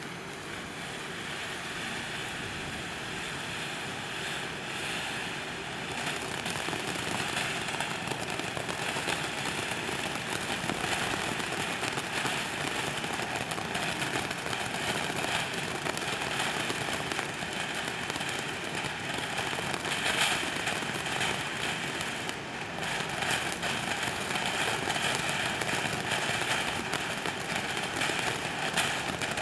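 TNT Hammer Head Shark firework fountain spraying sparks: a steady rushing hiss flecked with fine crackles, growing louder about six seconds in.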